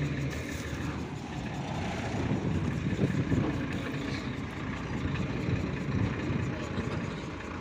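Mankoo combine harvester's diesel engine running steadily.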